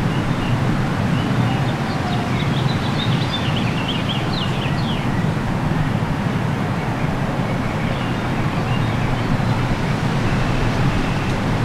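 Outdoor field ambience: steady wind rumble, with a bird chirping a quick run of short, high calls a few seconds in and a few fainter calls later.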